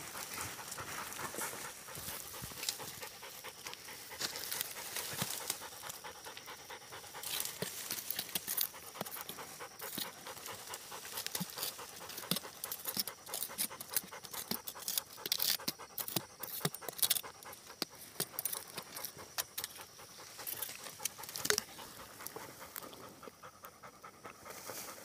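Hunting pointer dog panting rapidly close to the microphone, with scattered rustling and scratching clicks in the dirt.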